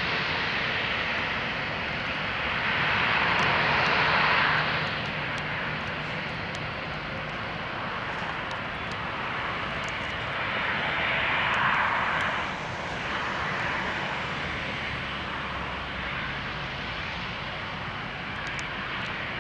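Jet airliner engines running at taxi power, a steady rushing noise that swells louder twice, about three seconds in and again around eleven seconds.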